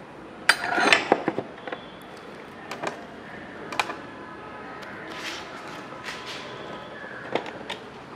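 Metal spanner clinking and knocking against a bolt and its metal bracket under a motorcycle seat while the bolt is unscrewed: a cluster of sharp clicks about half a second to a second in, then single clicks every second or so.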